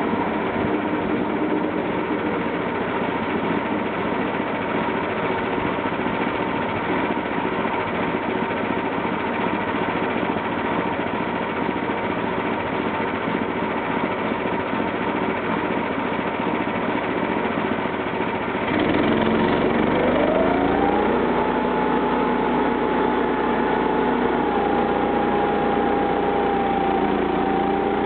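The 13 HP gasoline engine of a homemade band sawmill running steadily. About two-thirds of the way in it gets louder, and a rising whine climbs and then levels off.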